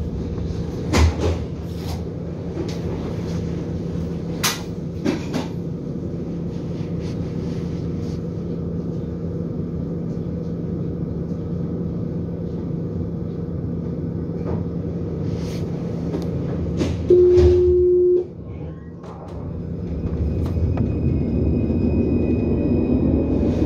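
Inside a tram standing at a stop: the steady hum of its onboard equipment, with a few sharp clicks. About 17 seconds in, a loud one-second steady warning tone sounds, the signal that the doors are closing. The tram then pulls away, its traction motors rising into a whine of climbing pitch.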